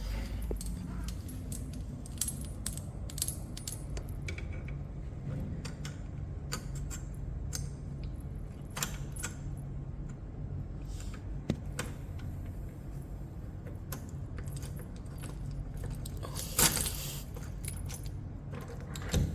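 Keys jangling and clicking as a mechanical backup key is handled and fitted into an electronic door lock, with scattered small clicks and a louder rattle near the end.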